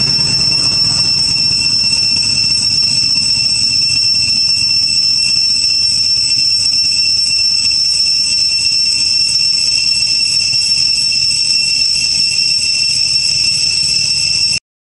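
Steady, high-pitched cicada drone that cuts out for a moment near the end.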